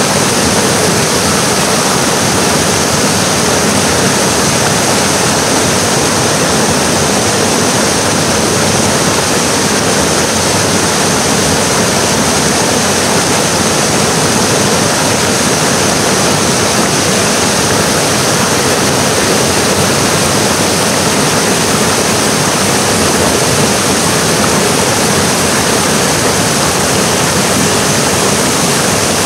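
Waterfall whitewater rushing and splashing over rocks: a loud, steady rush of water that does not let up.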